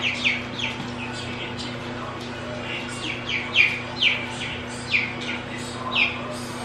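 Young chickens (pullets) peeping: a run of short, high, falling peeps, roughly two a second, over a steady low hum.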